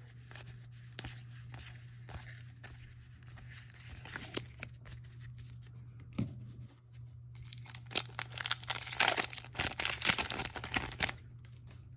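Cards being handled and set down with soft clicks. From about eight seconds in, a Magic: The Gathering booster pack's foil wrapper is torn open and crinkled, the loudest sound. A low steady hum runs underneath.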